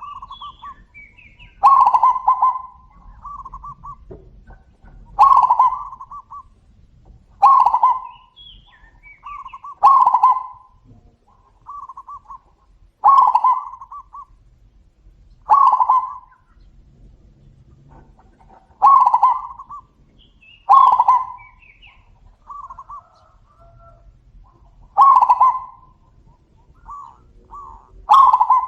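Zebra doves (perkutut) cooing back and forth: a loud, rolling coo phrase repeated about every two to three seconds, with fainter, shorter coos between them.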